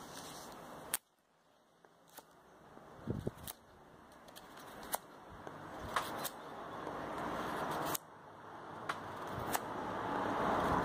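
A few light clicks and taps of a knife blade being handled against a piece of timber, over background noise that cuts out about a second in and then slowly grows louder again.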